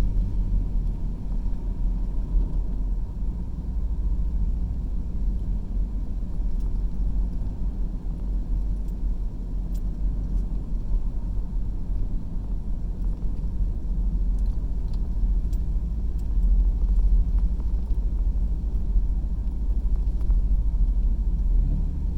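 Car driving on a paved road, heard from inside the cabin: a steady low rumble of engine and tyres, with the engine hum changing near the end.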